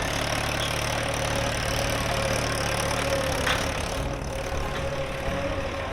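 Mahindra 575 DI tractor's diesel engine idling steadily.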